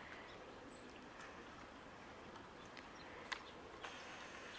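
Quiet outdoor background hiss with a few faint, scattered clicks.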